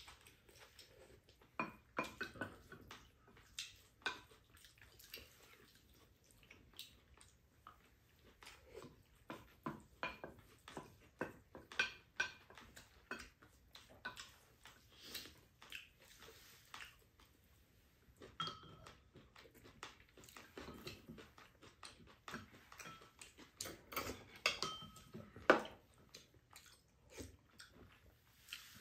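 Spoons and chopsticks clinking and scraping against ceramic bowls as two people eat, in many short scattered taps, a few ringing briefly.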